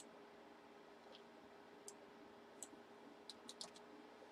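A few faint, sharp computer mouse clicks, a cluster of them near the end, over a low steady hum.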